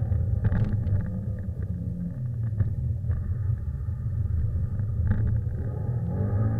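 Subaru Impreza WRX's flat-four engine heard from inside the cabin while it is driven hard through corners on a wet track, a heavy low rumble whose note drops around two seconds in and climbs again near the end as the revs change. Scattered short clicks and knocks sound over it.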